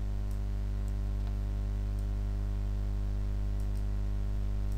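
Steady low electrical hum from the recording setup, with a few faint computer mouse clicks while the Photoshop brush is worked.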